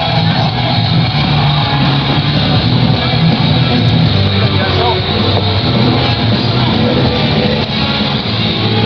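Rock music playing loudly, with people talking over it.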